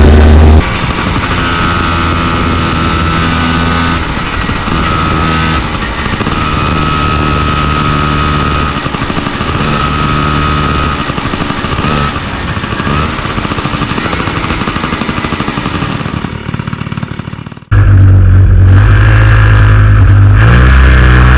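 125 cc two-stroke small-frame Vespa engine running on the road, its pitch stepping and dipping with throttle and gear changes. It fades near the end, then cuts suddenly to a louder, deeper engine run.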